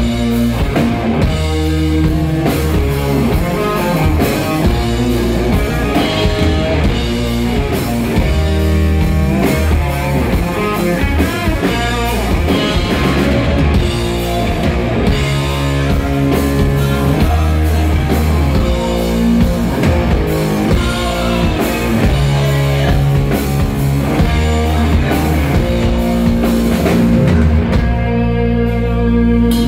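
Heavy rock band playing live through amplifiers: electric guitars and bass over a full drum kit, in an instrumental passage with no singing. Near the end the cymbals fall away under a held chord.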